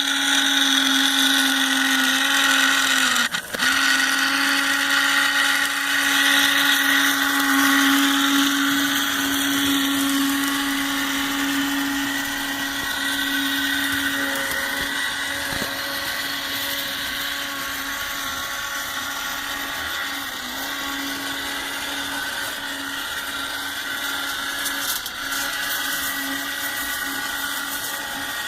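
The small electric motor of a model Union Pacific locomotive running with a steady whine, the strange noise its owner is asking about. The sound dips briefly a few seconds in and is a little quieter in the second half.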